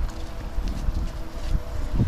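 Wind buffeting the microphone, an uneven low rumble, with faint steady tones in the background.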